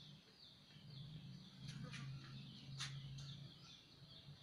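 Faint small birds chirping over and over in short downward chirps, over a low steady hum, with a few light clicks about two and three seconds in.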